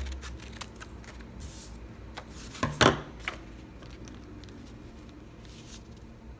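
Paper being handled on a table, with a few light clicks and a short, louder rustle of the paper about three seconds in.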